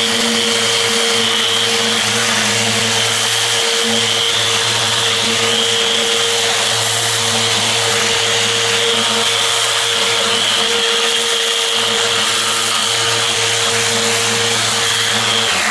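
Electric eccentric sander with 80-grit paper, set to its rotary mode for faster, coarser cutting, running steadily against a steel fire plate: a steady motor hum under a high whine, cutting off right at the end.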